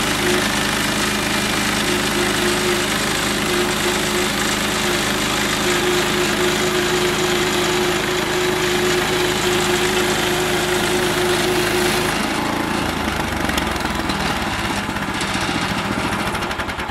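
Engine-driven band sawmill (Harbor Freight Central Machinery) running as it saws pine logs into boards. Its steady whine drops away about twelve seconds in, and the running turns lower and rougher.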